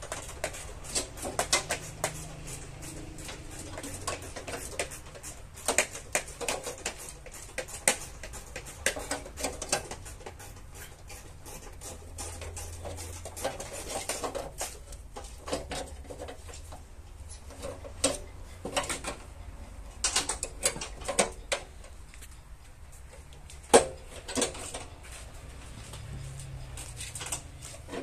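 Irregular small metallic clicks, taps and clinks as hand tools grip and work the crumpled sheet metal of a car's front inner wing, with one sharper knock near the end, over a low steady hum.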